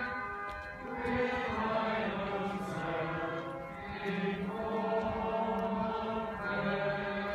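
A group of people singing a slow hymn, moving between long held notes.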